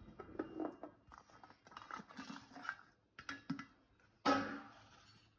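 Peeled garlic cloves, shallots and ginger pieces tipped off a steel plate into a steel bowl of raw chicken: soft scattered taps and patters, with a louder rush of pieces falling about four seconds in.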